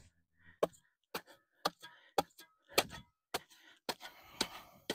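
Long-handled shovel blade chopping repeatedly into a thuja's compacted root ball and clay soil, about ten sharp strikes at roughly half-second intervals. The clay is being broken up to loosen the compacted roots before planting.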